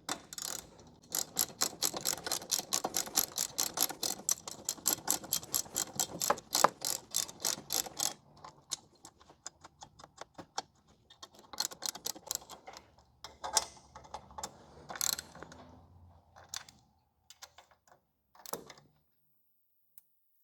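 Socket ratchet clicking quickly as bolts are tightened down, a steady run of clicks for about eight seconds, then shorter bursts of ratcheting with a few knocks, stopping near the end.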